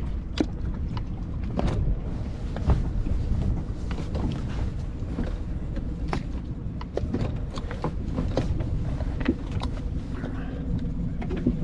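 Boat's motor running steadily under power with a low rumble, scattered clicks and knocks over it, as the grounded boat is pushed to get off a shoal.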